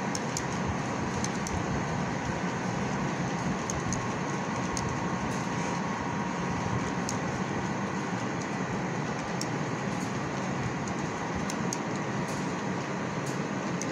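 Model train freight cars rolling along the track: a steady running noise with light, irregular clicks of the wheels over rail joints.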